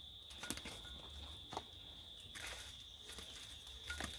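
A few light knocks and scrapes as a wooden stick and a coconut shell are handled against breadfruit roasting in a wheel-rim fire, over a steady high drone of insects.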